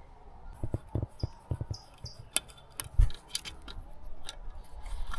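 Hand tools working on a small outboard motor's carburetor bolts: scattered metallic clicks and light knocks, a few brief high squeaks between one and two seconds in, and a sharper knock about three seconds in.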